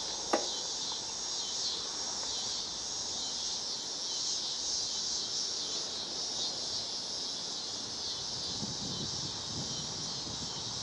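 Steady, high-pitched chorus of crickets trilling, with a single short click about half a second in.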